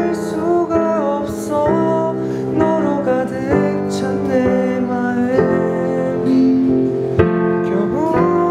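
A young man singing a slow Korean ballad into a microphone, accompanying himself with held chords on a digital piano.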